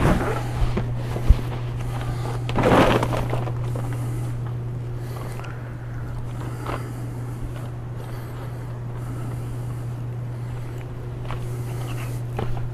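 Rustling and handling noises, with a sharp knock about a second in and a louder rustle near three seconds, over a steady low hum.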